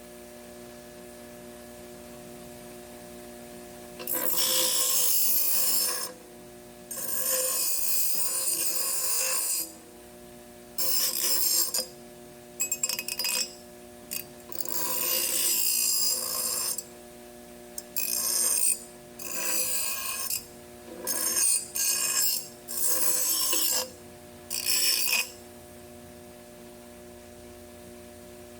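A series of harsh, hissing bursts, each from half a second to two seconds long and starting and stopping irregularly, over a steady hum.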